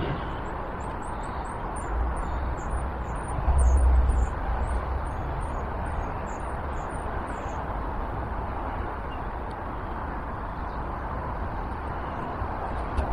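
Outdoor ambience: a steady background hiss with low rumbles of wind on the microphone, loudest about four seconds in, while a small bird chirps rapidly in short high notes through the first half.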